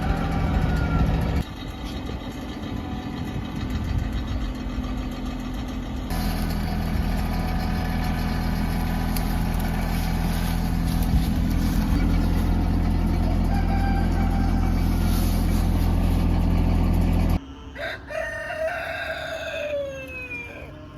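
Tractor engine running steadily, with a few rooster crows faintly over it. Near the end the engine drops away and a rooster crows loudly once, a long call that falls in pitch.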